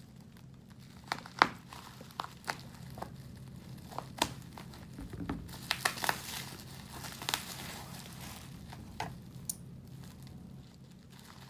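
Plastic parcel packaging crinkling and tearing as it is cut open with scissors, with scattered sharp clicks and crackles.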